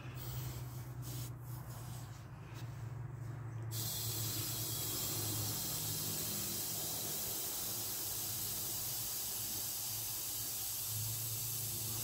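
Air hissing steadily at the valve of a wheelbarrow inner tube, starting suddenly about four seconds in.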